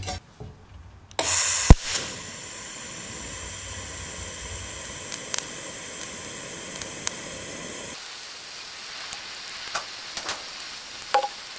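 TIG welding arc from a Unimig Razor 200 AC/DC TIG welder, striking suddenly a little over a second in with a sharp click, then hissing steadily with occasional small crackles as a bead is run along thin steel strip.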